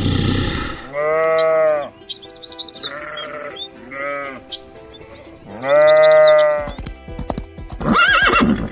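A farm animal calling about five times, in drawn-out calls that rise and fall in pitch, the longest near the middle. Background music plays throughout, with chirping high notes and a ticking beat in the last couple of seconds.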